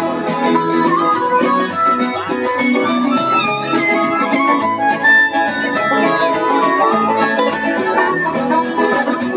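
Live band playing, with a harmonica taking the lead melody over guitars.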